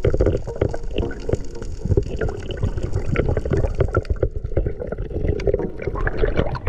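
Underwater sound of water rushing and gurgling around a GoPro camera as a freediver swims, with a dense run of irregular knocks and splashy rushes.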